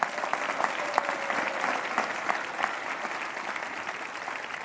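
Applause from a large audience: many hands clapping steadily, easing a little toward the end.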